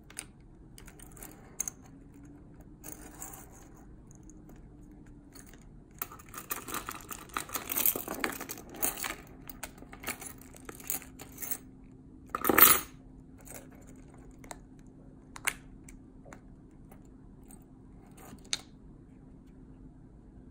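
Jeep Cherokee key fob and its key ring handled by hand: scattered small plastic clicks and key jangling, with a dense rattle about six seconds in. One loud sharp snap comes near the middle.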